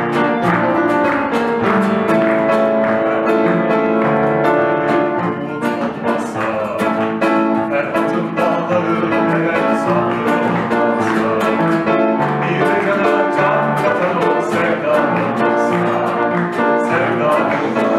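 Live instrumental music: an upright piano and an acoustic guitar playing together at an even loudness.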